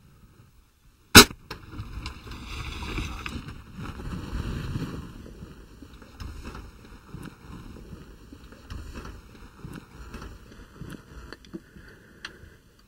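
Draw-Loc compound bow shot: one sharp, loud crack of the released string about a second in. Rustling and scattered light knocks follow.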